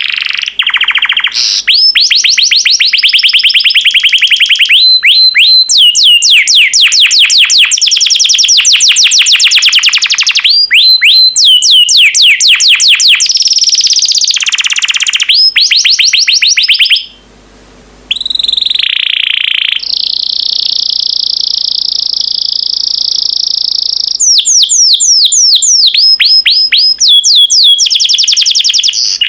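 Yellow canary singing loudly: fast trills of rapidly repeated high notes alternating with long, steady held rolls, with a short break about seventeen seconds in.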